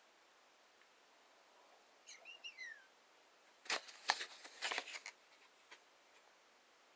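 A few sharp metallic clicks and taps about four seconds in, from handling the folding knife. Before them, a short series of high bird chirps falls in pitch.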